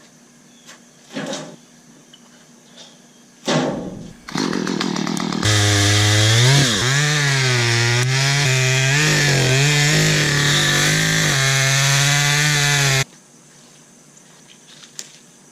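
Two-stroke chainsaw: a few short bursts, then it catches and runs loud for about eight seconds, its pitch dipping and rising with the throttle, before cutting off suddenly.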